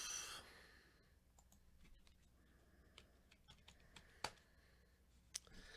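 Near silence with a few faint, scattered clicks of a computer mouse, a sharper one about four seconds in and two more near the end, as a spreadsheet is scrolled and clicked.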